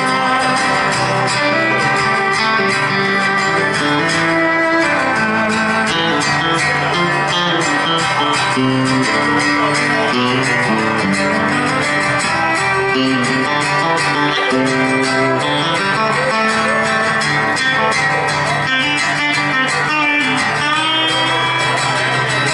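Live country band playing an instrumental break, led by a strummed acoustic guitar and an electric guitar, with no singing.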